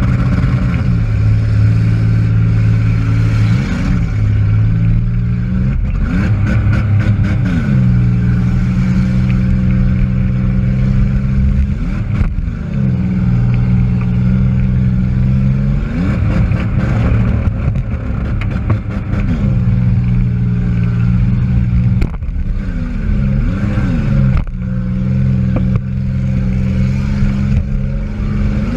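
A demolition derby car's engine heard from inside the car, running at high revs with the pitch dropping and climbing again every few seconds as the driver comes off and back on the throttle. Sharp clanks and knocks cut through it now and then, the hardest about two-thirds of the way through.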